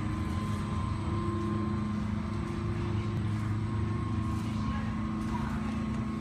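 Steady low mechanical drone of airport ground machinery, with a faint constant whine above it, as a Boeing 747-400 is pushed back from the gate by a tow tug.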